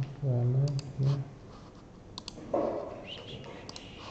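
A man's low, wordless voice in the first second, then a few clicks on a laptop, several of them in quick pairs.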